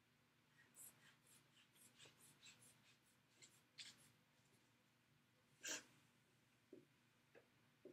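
Near silence, with faint quick scratchy ticks for a few seconds and one brief louder rustle about six seconds in, from handling a manual blood-pressure cuff and stethoscope during a reading.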